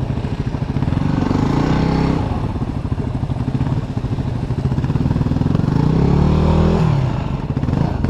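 Yamaha WR250R's single-cylinder engine running under load on a trail ride. Its pitch climbs steadily for about two seconds, then drops sharply just before the end as the throttle is eased or a gear is changed.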